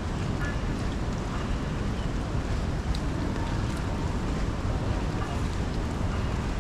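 Steady city street ambience: a constant rumble of traffic mixed with the hiss of rain, with a few faint ticks.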